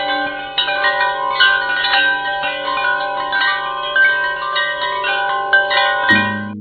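Bright chiming notes like wind chimes, many overlapping and ringing on. About six seconds in, lower sustained music tones take over.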